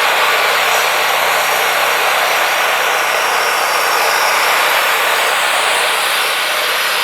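Wood-Mizer LT40 hydraulic band sawmill running steadily at a loud, unbroken level, its engine and band blade going on a pine log.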